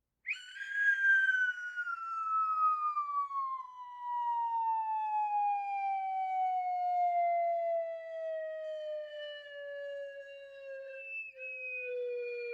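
Cartoon falling-whistle sound effect: one long whistle tone that glides slowly downward from high to low, still falling at the end.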